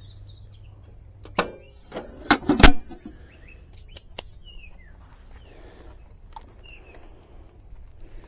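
A low hum that stops about a second and a half in, then a quick run of sharp clicks and clacks, the loudest near the three-second mark, as the power to an air-conditioning condenser is switched off. Birds chirp faintly afterwards.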